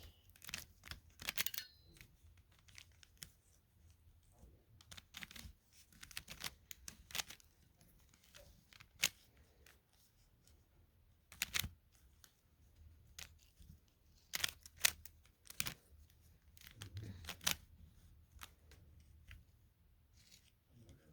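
A plastic Rubik's-type puzzle cube being turned by hand: irregular sharp clicks and clacks as its layers snap round, sometimes in quick runs, with pauses between.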